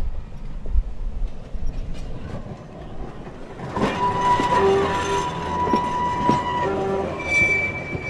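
Heritage Wellington tram running on its rails: a low rumble with clicks, then from about four seconds in a few seconds of loud, steady high-pitched tones, typical of the steel wheels squealing on a curve, with a shorter high tone near the end.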